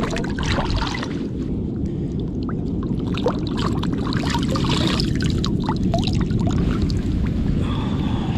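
Tide-pool water splashing and trickling as a gutted fish is swished and rinsed by hand, in many small irregular splashes. A steady low rumble runs underneath.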